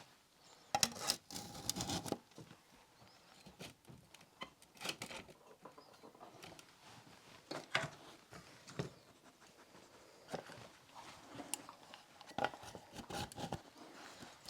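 Irregular metal clinks, knocks and scraping as small hatches and covers are fitted back into a wood-burning bread oven, with a brief ringing clang about a second in and again near the end.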